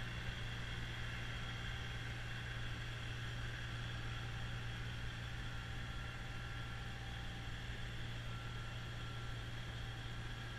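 Kubota BX2660 compact tractor's three-cylinder diesel and its front-mounted snowblower running steadily at working throttle while clearing snow, heard at a distance with a constant hum and hiss, slightly fainter near the end.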